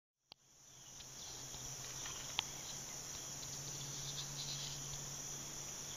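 Steady, high-pitched insect chorus that starts abruptly a moment in, with one sharp click about two seconds later.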